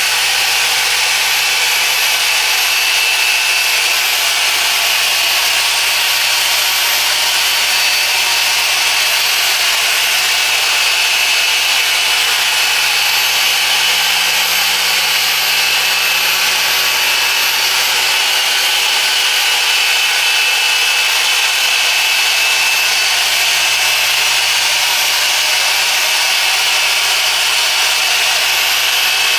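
Machine polisher running steadily with its pad rubbing on car glass during glass polishing; an even, unbroken whirring hiss.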